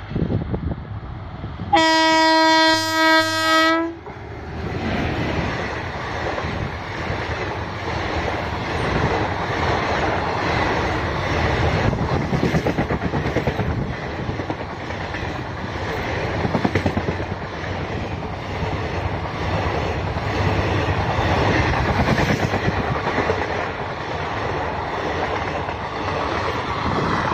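WAP-4 electric locomotive sounding its horn in one steady blast of about two seconds, then the express train's passenger coaches rushing past close by, their wheels clattering over the rail joints.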